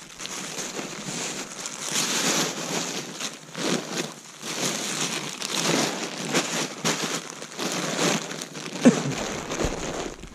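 Irregular, close crunching and rustling, with one sharp knock about nine seconds in.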